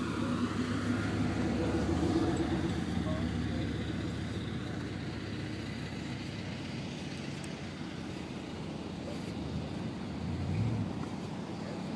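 A car engine running steadily with a low, even hum that fades after the first few seconds, then swells briefly near the end.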